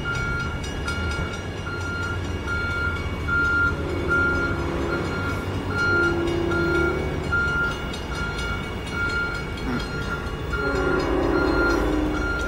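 Grade-crossing bell ringing steadily at about one strike a second, over a low rumble, while a train horn still out of sight sounds a chord of several notes twice, about four seconds in and again more loudly near the end.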